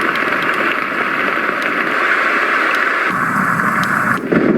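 Rain sound playing from a white noise machine's small speaker: a steady hiss with a few faint drop-like clicks. A little after three seconds in the sound shifts lower, and near the end it changes to a different, rougher noise as the machine moves to another sound.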